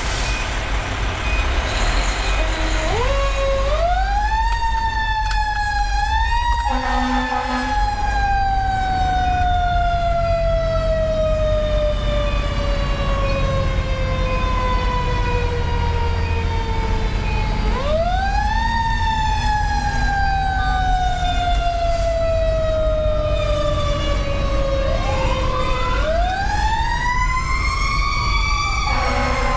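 Siren of a 2010 Pierce Velocity fire engine responding to a call, heard from inside the cab. It winds up to a high pitch about three seconds in, then slowly winds down over about ten seconds. It winds up again about halfway through and once more near the end, over the steady low rumble of the engine's 470 hp Detroit Series 60 diesel. A regular beeping is heard in the first few seconds.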